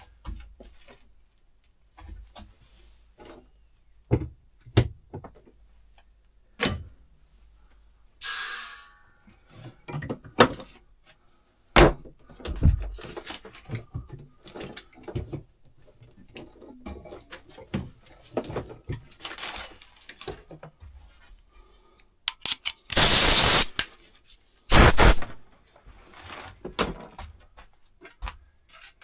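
Workshop rummaging: scattered knocks and clunks of things being moved and put down, like doors and drawers, with two short, loud rushing hisses about three quarters of the way in.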